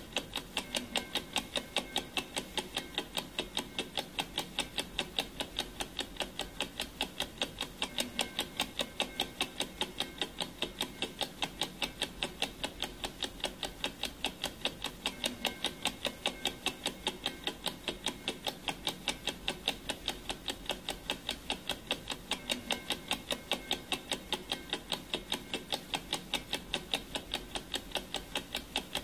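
Clock ticking: a steady, even train of sharp ticks, several a second, used as a countdown timer's sound effect.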